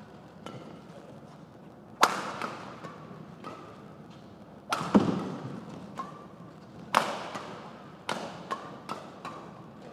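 Badminton rackets striking the shuttlecock in a fast doubles rally: a run of sharp cracks, the hardest about two, five and seven seconds in, each echoing briefly in the hall. Short squeaks of court shoes fall between the shots.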